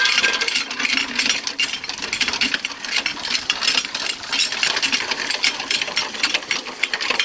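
Chain-and-washer water pump running, its chain and washers clattering in a fast, steady rattle as it lifts water.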